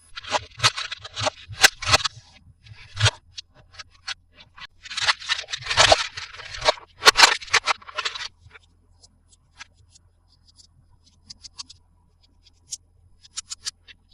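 Toy packaging and toy parts being handled in an unboxing: bursts of scraping and rustling, then scattered light clicks through the last several seconds.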